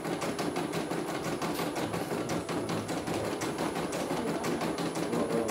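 Computerized embroidery machine stitching, its needle working in a rapid, even run of strokes while the hoop carriage moves the fabric.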